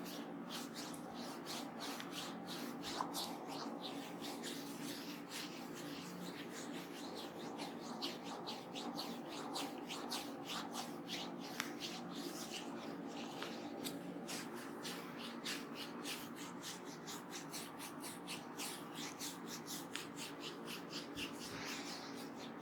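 Hands massaging an oiled scalp and hair: a long run of quick, short rubbing strokes, several a second, over a low steady hum.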